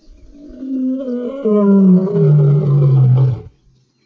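Black-maned lion roaring: one long deep call that swells over the first second and a half, drops in pitch, and stops about three and a half seconds in.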